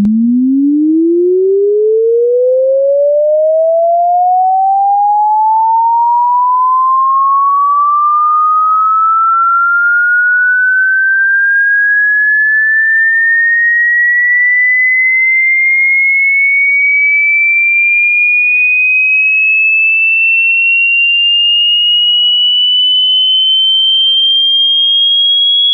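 A single loud, pure electronic sine tone sweeping upward in pitch, from a low hum to a high whistle, rising quickly at first and then more slowly.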